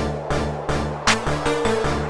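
Electronic background music with a steady beat and sustained bass notes, a sweeping hit about every second and a half.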